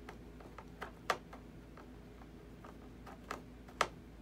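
A few short, light clicks over a low room hum, loudest about a second in and again near the end.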